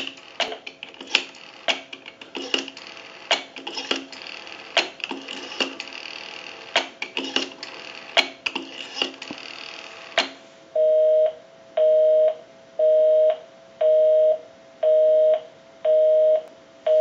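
Clicks from a payphone's rotary dial being dialed, heard over the phone line for about ten seconds. Then a busy signal starts: a two-tone beep repeating about once a second, because the number dialed is busy.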